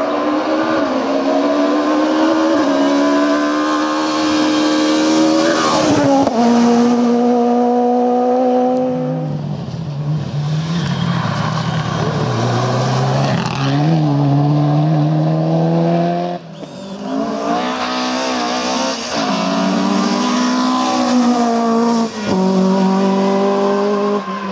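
Rally cars driven flat out, one after another, engines revving high and rising in pitch through each gear. The note breaks off briefly at each gear change or throttle lift, then climbs again.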